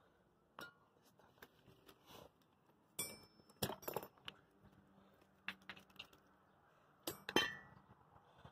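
Scattered sharp metallic clinks of tools and parts being handled against a steel steering knuckle while a ball joint is fitted. Several of them ring briefly, and the loudest pair comes about seven seconds in.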